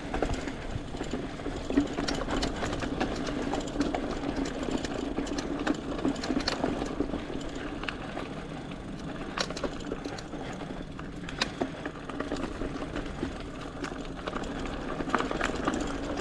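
Electric bike motor running steadily under load with a constant whine, while the bicycle rattles and clicks over a bumpy trail.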